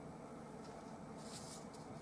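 Mostly quiet room tone, with a faint, brief scratch of a flat bristle brush on canvas a little over a second in.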